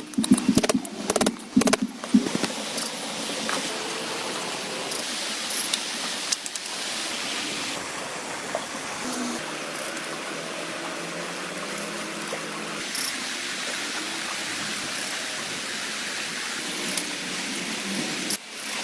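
Steady rain falling, an even hiss with scattered single taps of drops. In the first two seconds a cluster of sharp, loud taps and knocks sits over it.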